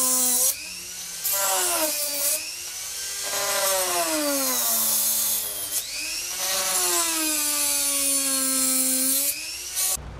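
Handheld high-speed rotary tool cutting into a board. Its high-pitched whine sags in pitch and recovers again and again as the bit bites into the material and eases off, with a few short pauses.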